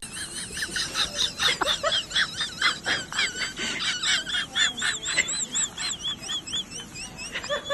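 Rapid, high-pitched chirping and twittering, like a small bird's, several chirps a second.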